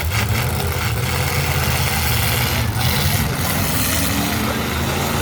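Demolition derby car engines running loud and steady, several at once, with one revving up a little in the middle.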